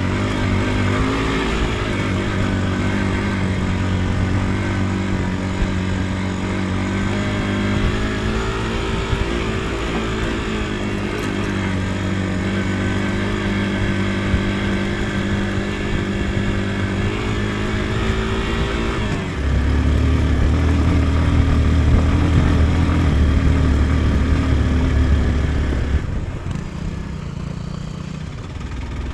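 Motorcycle engine running steadily while riding. At about two-thirds of the way in, the engine note drops lower and grows louder, then fades somewhat near the end.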